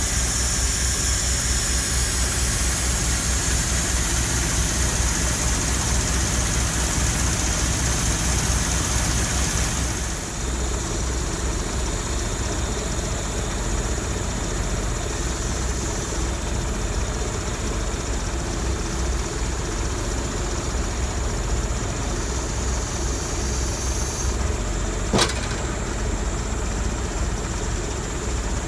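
Large diesel engine idling steadily, with a high hiss over it for the first ten seconds and a single sharp knock about 25 seconds in.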